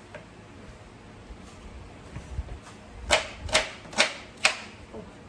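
Kitchen knife striking a cutting board in four sharp, evenly spaced chops about half a second apart, after a few soft low knocks.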